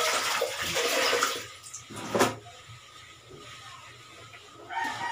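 Water splashing and streaming as wet clothes are lifted from a plastic basin and worked by hand, with one loud splash about two seconds in.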